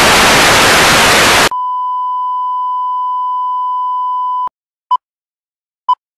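Television static hiss, cut off about a second and a half in by a steady test-tone beep that holds for about three seconds, as played over colour bars. Then two short film-countdown beeps, a second apart.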